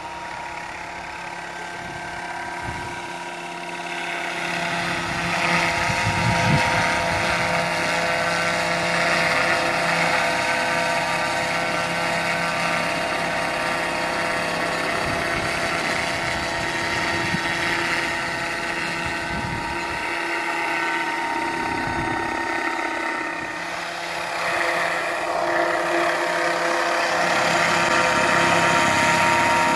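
Radio-controlled scale model of a Bell UH-1 helicopter running, its motor and rotor making a steady whine with several held tones over a rushing noise, getting louder as the model comes closer.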